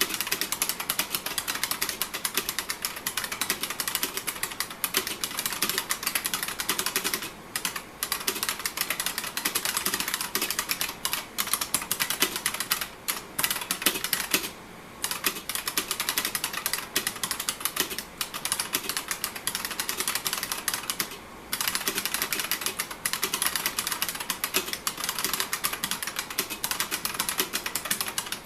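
Fast continuous typing on an IBM Model M2 buckling spring keyboard, a dense run of sharp, high-pitched key clicks with a few brief pauses.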